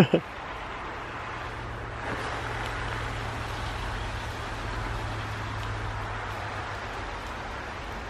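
A motor vehicle running steadily some way off, a low even hum over a wash of noise. Two sharp thumps at the very start.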